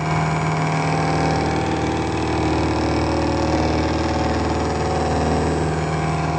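Vertical milling machine running steadily, its end mill cutting into a steel gearbox gear held in a chuck on a rotary table: a constant machine hum with cutting noise.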